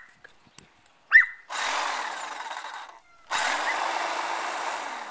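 Black & Decker Hedge Hog electric hedge trimmer switched on in two runs: a short run of about a second and a half, a brief stop, then a longer run that starts to slow near the end. A dog barks once just before the first run.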